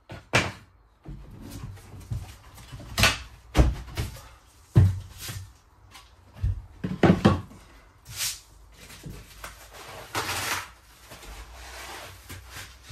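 Pieces of wooden floorboard knocking and clattering as they are prised up and handled: a string of sharp knocks and thuds through the first eight seconds, then a longer scraping rustle about ten seconds in.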